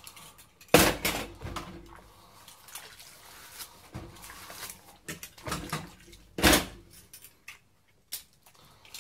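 Crockery clinking and clattering in a sink of washing-up water as dishes are washed by hand, with two loud clatters, about a second in and again about two-thirds of the way through.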